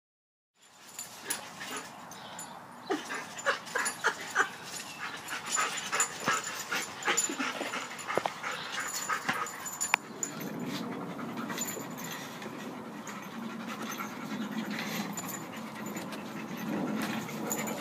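Two dogs, a yellow Labrador and a small shaggy dog, play-fighting: panting and scuffling, with many short snaps and clicks for the first ten seconds, then a steadier low sound for the rest.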